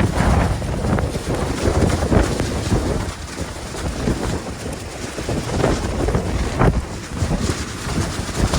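Blizzard wind gusting at 60-70 mph and buffeting the microphone: a loud, low rushing rumble that rises and falls unevenly with each gust.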